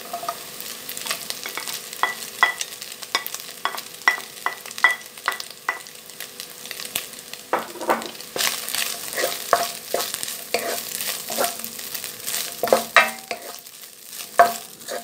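Shredded dried fish stir-fried in hot oil with minced ginger and garlic: a wooden spatula knocks and scrapes against the nonstick pan over a steady sizzle, which grows louder about halfway through.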